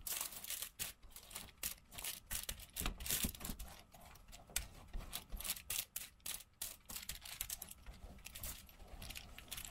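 Raw granola mix being stirred and scraped with a spoon: a fast, irregular run of light scrapes, rustles and clicks.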